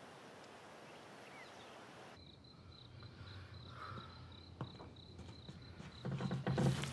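A cricket chirping steadily, about three chirps a second, in a quiet night room, after a plain outdoor hiss that cuts off about two seconds in. Near the end, louder thuds and shuffling come in.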